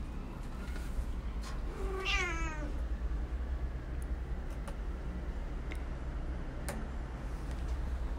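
A domestic cat giving one short meow about two seconds in, falling in pitch: a grumpy protest at being teased.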